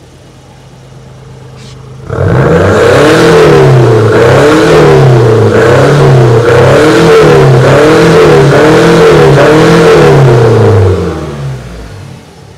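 Ford Figo diesel engine with an aftermarket exhaust, idling and then revved hard over and over: about eight quick rises and falls in pitch, loud at the tailpipe, before it drops back to idle near the end.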